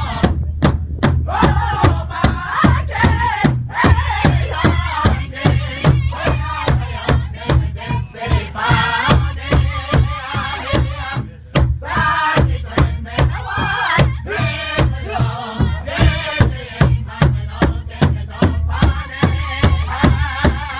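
Powwow drum group: several men beating one large hide drum together in a steady pulse of about two strokes a second while singing as a group, the voices climbing high in places.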